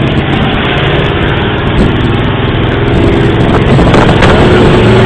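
Off-road 4x4 truck driving on a dirt trail, heard loud from inside the cab: a steady engine note under dense trail and body noise, with constant rattling.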